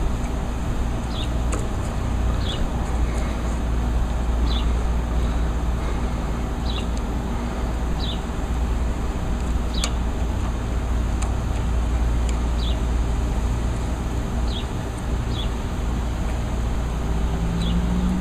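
Steady low outdoor rumble, with a bird repeating a short falling chirp every one to two seconds and a few faint clicks.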